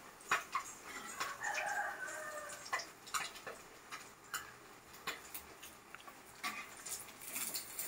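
Batter-coated boiled-egg fritters (egg bajji) frying in hot oil in a pan, crackling with scattered sharp pops. A short pitched call sounds about one and a half seconds in.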